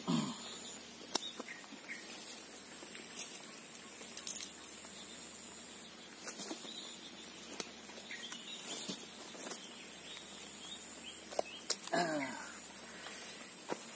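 Scattered taps, knocks and rustles from a caught toman (giant snakehead) thrashing in wet grass as it is gripped and unhooked, over a steady high-pitched hum. Two short falling calls sound, one at the start and one near the end.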